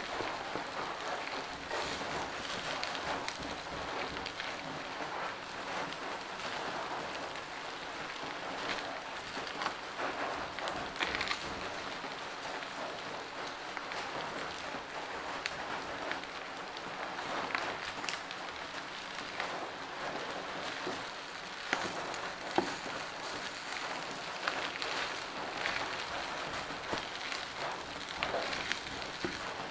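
Fried rice sizzling in a hot pan as it is stirred and mixed with a spatula, a steady frying hiss with scattered clicks and scrapes of the spatula against the pan.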